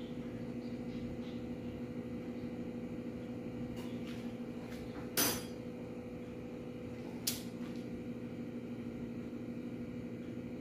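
A few sharp clinks of kitchen utensils against dishes, the loudest about five seconds in, over a steady low hum.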